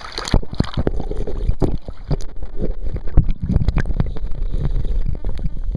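Rumbling wind buffeting and handling noise on the camera's microphone, with many irregular knocks and rubs as the camera is moved about at close range.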